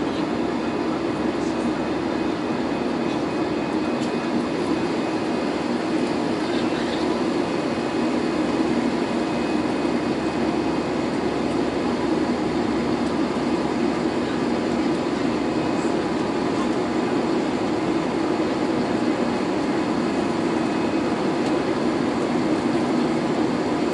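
Airbus A320neo engines and airflow heard from inside the cabin over the wing during the climb after takeoff: a loud, steady drone that stays even throughout.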